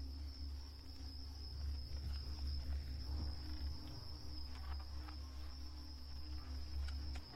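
Horror-film sound design: a low rumbling drone under a steady high insect-like trill, with a few faint clicks.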